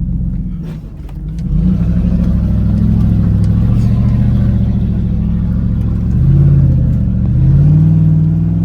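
Dodge Ram pickup's Hemi V8 pulling under load from inside the cab. The engine speed climbs about a second and a half in and rises twice more near the end.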